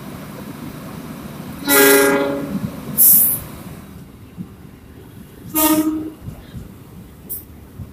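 KRL commuter electric train running through the station without stopping, sounding its horn twice: a blast about two seconds in and a shorter one near six seconds, over the steady noise of the passing train. A short hiss follows the first blast.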